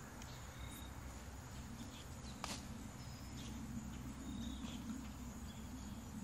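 Quiet outdoor ambience: a steady low rumble with a faint, steady high-pitched tone, a few brief faint chirps, and a single click about two and a half seconds in.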